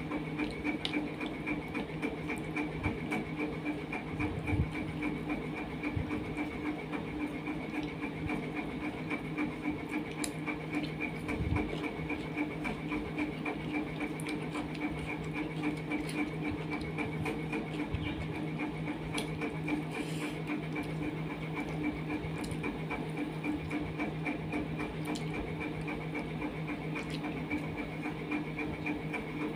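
A steady machine-like hum with a fast, even flutter, unchanging throughout, over faint scattered clicks and rustles of fingers mixing rice on a steel plate.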